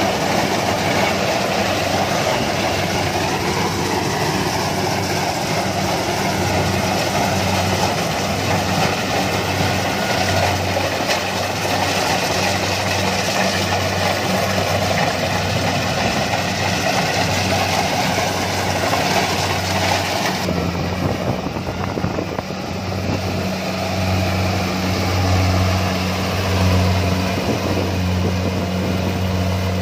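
Rice combine harvester's diesel engine running steadily under load while it cuts and threshes standing rice. Its low, even hum goes on without a break, and the sound turns duller, losing its hiss, about twenty seconds in.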